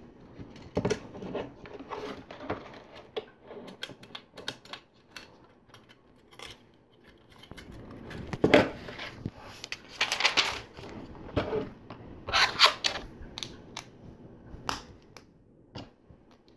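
Plastic LEGO bricks being handled and pressed together: a scatter of sharp clicks and snaps, with a few short bursts of loose pieces rattling and clattering.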